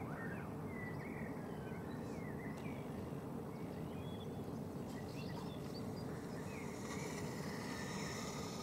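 Outdoor night ambience: a steady low rumble with faint, short, wavering chirps scattered throughout.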